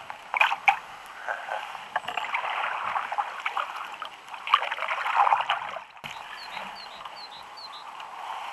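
Kayak paddle strokes splashing in the water, with irregular dips of the blades. About six seconds in, the paddling stops, leaving a steady outdoor hiss with a quick run of about five short, high, falling chirps.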